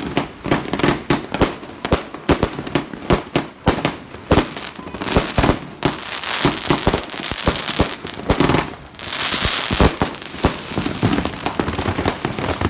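An 80-shot consumer firework cake firing, with sharp reports coming several a second and two spells of crackling stars, the longer one about nine seconds in.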